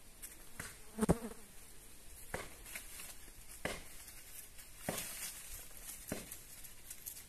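Dry bean pods and stalks snapping and rustling as they are picked by hand: a sharp snap about every second and a quarter. A person gives a brief murmur about a second in.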